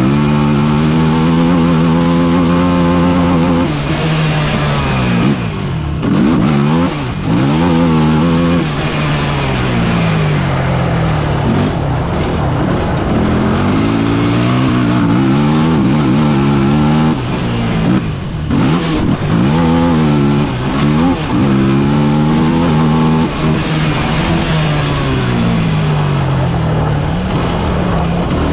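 Off-road vehicle's engine, heard from on board at speed, revving and easing off again and again with the throttle, its pitch climbing and then dropping back several times, over a steady rush of wind and road noise.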